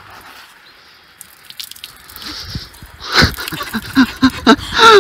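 Water pouring out of a plastic water bottle. It starts with a faint trickle, and from about halfway through it glugs loudly in quick pulses as air gulps back into the bottle.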